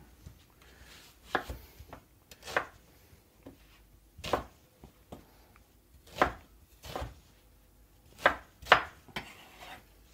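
Chef's knife chopping an onion on a wooden cutting board: a few separate, unevenly spaced knocks of the blade against the board.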